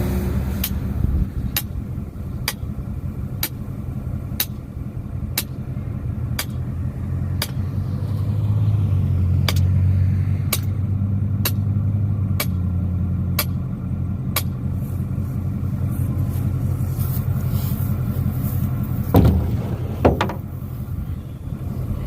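Vehicle engine running at low speed, its drone swelling a little midway, with a sharp tick about once a second for roughly the first fifteen seconds. Two knocks near the end.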